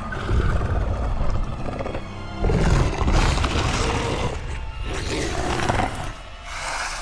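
A large film monster, the Ursa creature, giving several long roaring growls over an orchestral film score.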